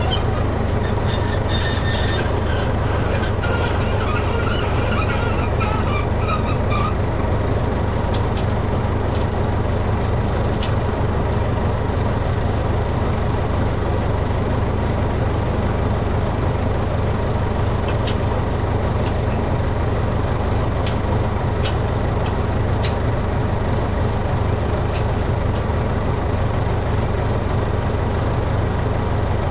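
Tractor engine running steadily, a constant low rumble. A higher wavering sound rides over it for the first several seconds.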